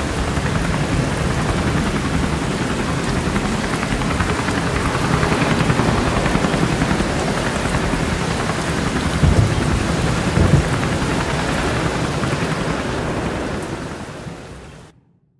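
Heavy rain with thunder, two louder claps about nine and ten and a half seconds in. It fades out near the end.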